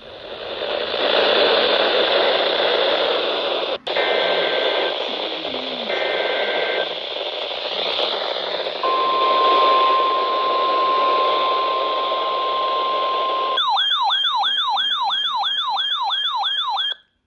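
NOAA Weather Radio reception under static hiss, with faint SAME digital header bursts about four and six seconds in. The steady 1050 Hz weather-radio warning alarm tone follows from about nine seconds in. Near the end the hiss drops out and an electronic siren-like alert takes over, rising in pitch over and over at about three sweeps a second, then cuts off.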